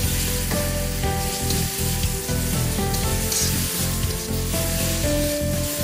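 Pork and green chillies sizzling in a hot wok just after a soy-sauce mix is added, while being stirred with a wok spatula.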